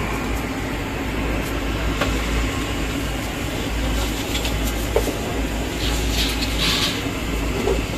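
Steady low rumble and hum of background machinery, with crinkly rustling of thin wrapping paper about six to seven seconds in as the sheets are peeled apart.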